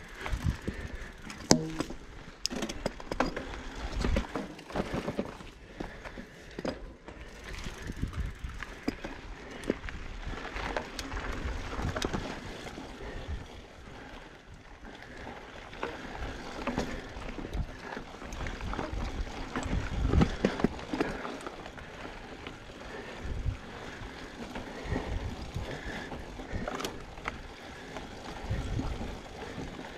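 Mountain bike being ridden along a dirt trail: steady tyre and drivetrain noise with irregular knocks and rattles from the bike over bumps.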